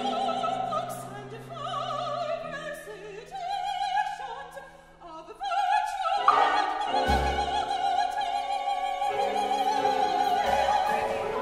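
Contemporary chamber opera: a solo singer with wide vibrato sings a line over held chords from a small instrumental ensemble. The singer breaks off briefly about five seconds in, then holds one long high note, with deep low thuds about seven seconds in and again near the end.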